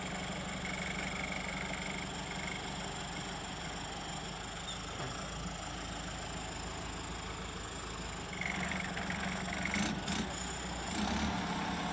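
Kubota L5018SP tractor's diesel engine running steadily while its front blade pushes against a tree stump, with two sharp knocks near the end.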